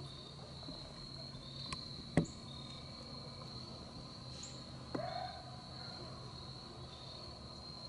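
Crickets trilling in one steady high-pitched note, with a sharp click about two seconds in and a soft knock near five seconds.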